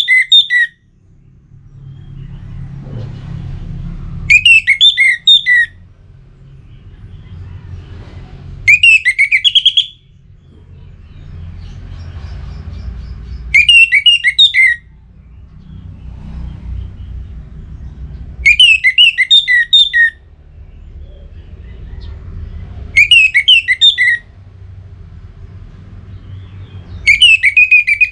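Orange-headed thrush (anis merah) singing the same loud, whistled phrase of about a second over and over, roughly every four and a half seconds, as a lure song meant to rouse a rival bird. A low rumble fills the gaps between phrases.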